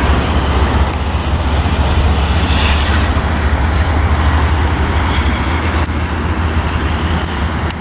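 Wind buffeting the microphone: a loud, steady low rumble with a rushing hiss over it.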